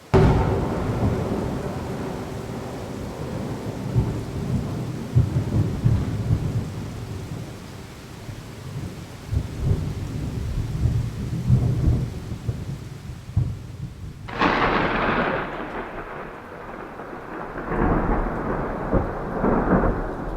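Thunder: a sudden clap opens a long rolling rumble that slowly fades, then a second, sharper crack about fourteen seconds in sets off another rumble.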